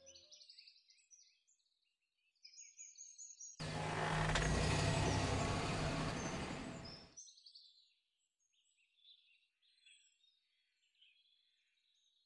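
Birds chirping in the background, with a loud rushing noise that starts abruptly a few seconds in, swells and fades away over about four seconds.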